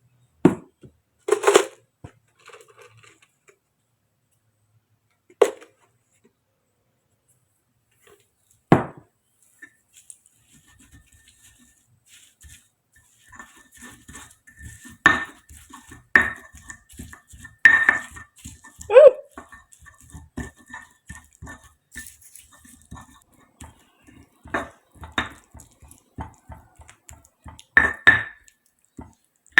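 Dishes and kitchen utensils clinking and knocking, a few separate knocks at first, then a busier run of clatter through the second half.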